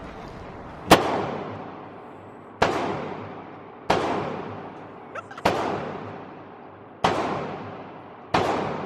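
Six 9mm pistol shots fired at an uneven pace, about one to one and a half seconds apart. Each is really loud and echoes in the enclosed range, with a long fading tail.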